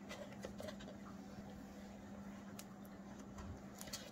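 Faint handling sounds of an iPhone box's paper inner tray and EarPods packaging being worked by gloved fingers: scattered light clicks and rustles, a cluster early on and a few more near the end, over a steady low electrical hum.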